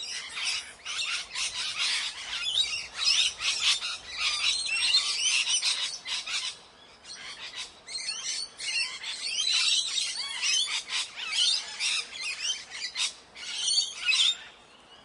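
Ringneck parakeet giving rapid, high chattering calls and squawks, with a brief pause about halfway through.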